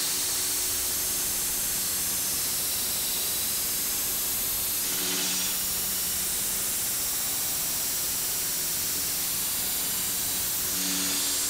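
Belt sander grinding the edge of a rusty steel cleaver blade: a steady, high grinding hiss as the blade is held to the belt. About five seconds in and again near the end, the sander's motor hum briefly comes through.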